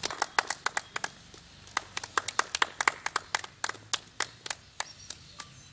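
A small group of people clapping by hand, loose and uneven claps several a second, with a short lull about a second in.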